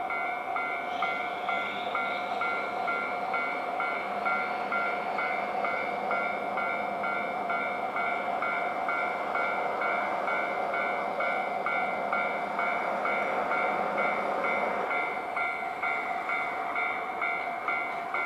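Level-crossing warning bell ringing in a steady repeating pattern of about two dings a second. Under it, the rumble of a JR Hokkaido 733 series electric train pulling in builds up and then eases off about fifteen seconds in.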